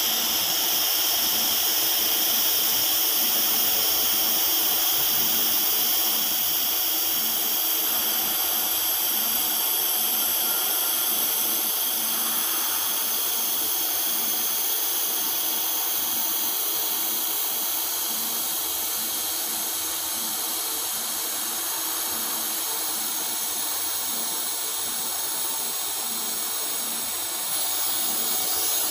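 TIG welding arc on carbon-steel pipe: a steady hiss with a constant high-pitched whine, running evenly without breaks.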